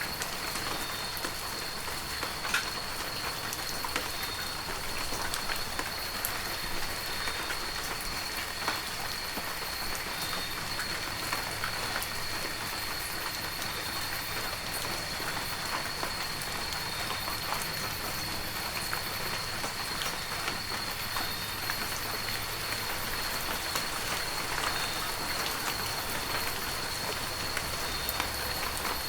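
Heavy rain falling steadily, with many separate drops ticking close by. A thin, steady high-pitched tone runs beneath it.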